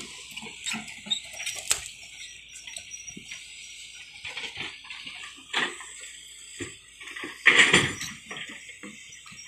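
Hitachi EX200 excavator working beside a barge: a faint low engine hum under irregular knocks and clanks, with one louder rough burst about eight seconds in.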